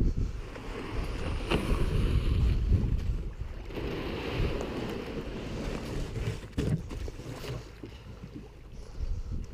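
Kayak being paddled across a lake: paddle strokes splashing in the water, with a few short knocks. Wind rumbles on the microphone.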